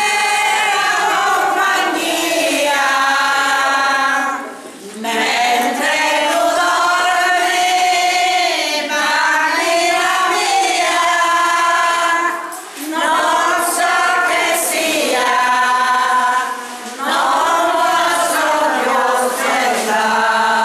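A group of elderly women singing a traditional folk song together, in long held phrases with short pauses between them.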